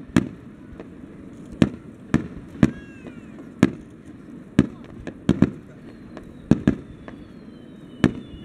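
Aerial firework shells bursting overhead: about a dozen sharp bangs at irregular intervals, roughly one a second, several coming in quick pairs.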